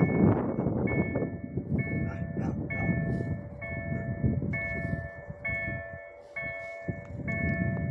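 Railway level-crossing warning bell: an electronic ding repeating about once a second, signalling that a train is approaching. A fluctuating low rumble runs underneath.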